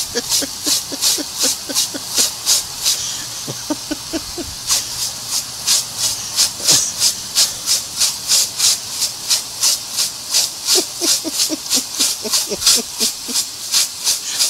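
Lawn sprinkler spraying a jet of water in rhythmic hissing pulses, about three a second. A dog snaps and gulps at the jet in a few quick runs of short sounds.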